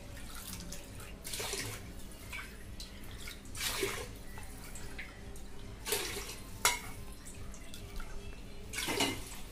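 Bowlfuls of water poured from a steel bowl into an aluminium pressure cooker of soaked moong dal and rice: about four short splashes a couple of seconds apart, with a sharp clink of metal about two-thirds of the way through.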